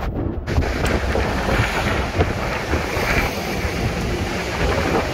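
Wind buffeting the microphone on the open top deck of a moving double-decker tour bus, over a steady low rumble from the bus and street traffic.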